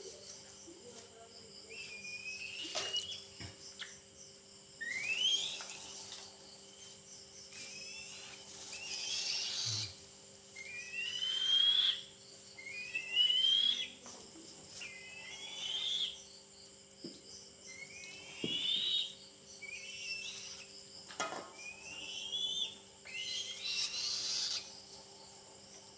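Eagle chick giving a series of rising whistled calls, one every second or two, the begging calls of a young raptor being fed.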